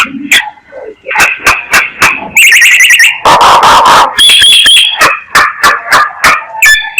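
Myna calling in a lure recording: a rapid string of sharp clicks and chatter, a warbling whistle about two and a half seconds in, then a harsh rasping call lasting about a second, followed by high whistled notes and more clicks.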